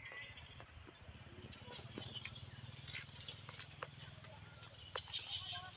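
Faint rustling and scattered sharp clicks from a branch and dry leaves as a macaque shifts on the branch, over a low steady rumble.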